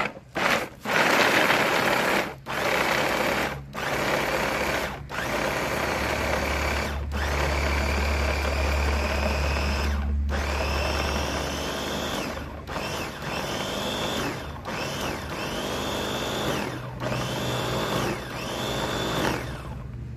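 Electric bowl food chopper with a red plastic top, pulsed on and off a dozen or more times as it chops a thick herb and spice paste, each run lasting one to three seconds. In the later runs the motor's whine rises in pitch as it spins up each time.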